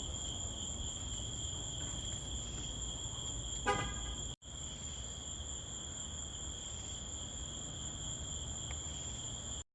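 Crickets trilling steadily over a low rumble, with one short car-horn toot a little under four seconds in. The sound cuts out for an instant just after the toot, then the trilling carries on.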